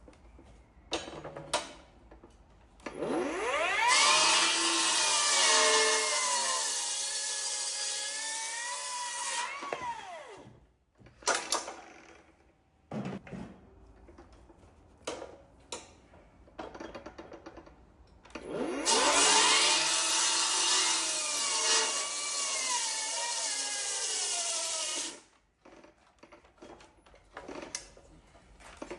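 Power saw run twice. Each time the motor whines up to speed, cuts through green oak for about six seconds and then winds down; the two cuts are a tenon's shoulders. Short knocks and clicks of wood and tools being handled come between the cuts.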